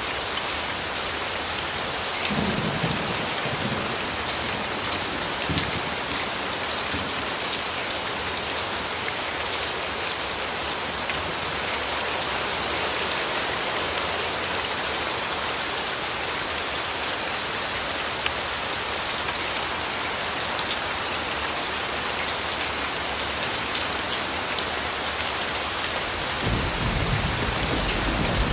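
Steady heavy rain falling, an even hiss. Low thunder rumbles come in about two seconds in and again near the end.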